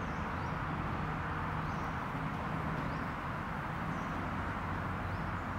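Steady outdoor background noise, a low rumble and hiss, with short high bird chirps sounding every second or so.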